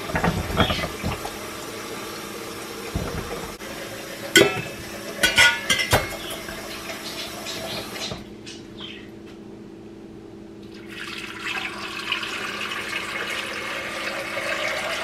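Small potatoes dropped one by one into a stainless steel pot, knocking against the metal with a brief ring, over the first six seconds. Then, from about eleven seconds in, water pours from a plastic pitcher into the pot.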